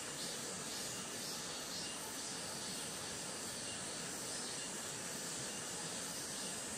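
Steady hiss of a flowing river, with insects chirring faintly and high above it.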